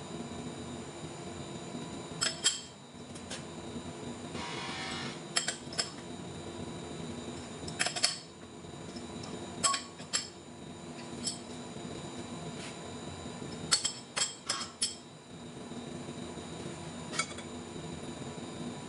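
Irregular sharp metallic clinks and knocks, often in quick pairs or clusters, from a steel wrench working the clamps on a large lathe faceplate as a flange is clamped and trued. A short scraping sound comes about five seconds in, over a steady machine-shop hum.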